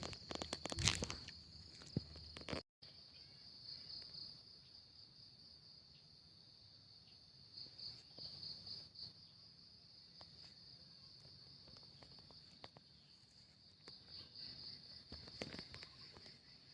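Steady high-pitched insect chirring that swells a few times, with rustling and clicks in the first few seconds.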